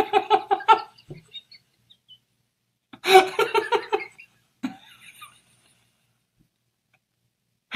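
A man laughing in two bursts of quick, evenly spaced "ha-ha" pulses, one at the start and another about three seconds in.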